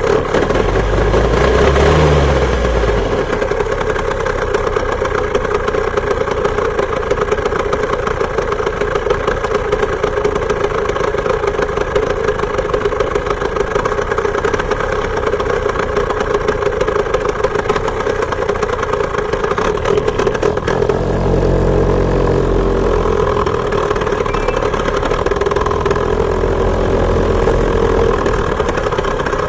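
Two-stroke chainsaw engine driving a homemade moped, running steadily with a constant high-pitched drone. Low rumbles come and go briefly near the start and again for several seconds in the last third.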